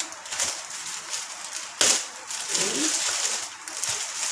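Parcel packaging being pulled and worked open by hand: rustling and scraping, with a sharp snap about two seconds in.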